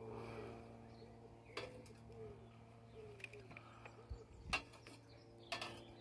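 A pigeon cooing in a run of short, low, repeated notes, with a few sharp metal clinks as tongs knock against the inside of a steel charcoal chimney starter; the loudest clink comes about four and a half seconds in.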